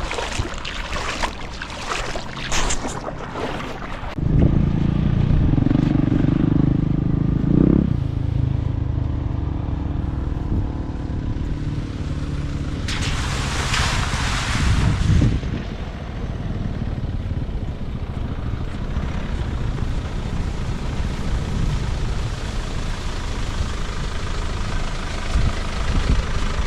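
A four-wheel-drive vehicle's engine running with a steady low rumble that starts suddenly about four seconds in and carries on to the end, with a brief loud rush of noise about halfway through.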